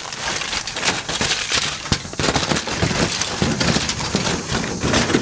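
Aluminium foil crinkling and crackling close up as it is folded and pressed down around the edges of a foil packet to seal it.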